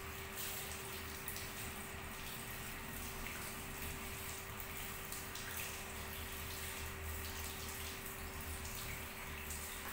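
Water spraying from a shampoo basin's hand-held shower head onto hair during a rinse, a steady hiss, with a steady hum underneath.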